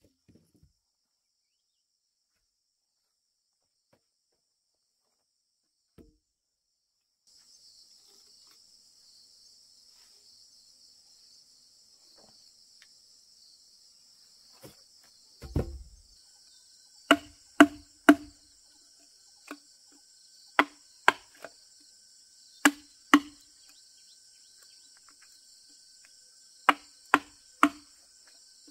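Hammer driving a chisel into a squared timber beam, sharp strikes in quick groups of two or three, after a single dull thump about halfway through. Crickets or other insects chirr steadily in the background from about seven seconds in.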